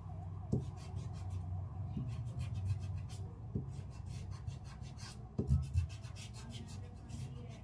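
Eraser rubbing back and forth on drawing paper in short, quick strokes, rubbing out pencil guide lines, with a few soft thumps, the loudest about five and a half seconds in.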